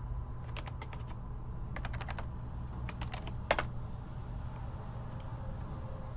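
Typing on a computer keyboard in three short bursts of keystrokes, with one louder key press about three and a half seconds in.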